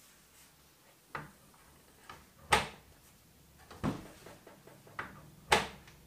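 Porthole door of a front-load washing machine being swung and shut onto its latch, with a few light clicks and knocks from handling it. Two sharp knocks about three seconds apart are the loudest.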